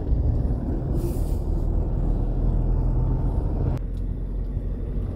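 Car driving on a hill road, heard from inside the cabin: steady low rumble of engine and tyres. A brief hiss comes about a second in, and the sound changes abruptly shortly before the end.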